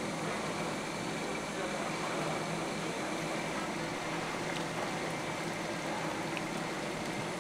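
Hot oil bubbling and sizzling steadily as batches of raw dough twists deep-fry in a continuous paddle-conveyor fryer, over a low steady machine hum.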